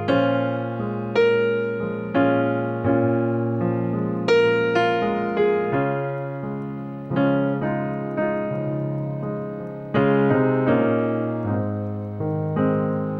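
Background piano music: a slow run of single notes and chords, each struck and left to ring away.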